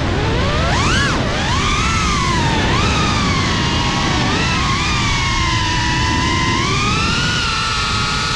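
FPV racing quadcopter's brushless motors and propellers whining in flight, the pitch swooping up and down as the throttle changes, with a sharp climb about a second in and another rise near the end, over a rough low rush of air.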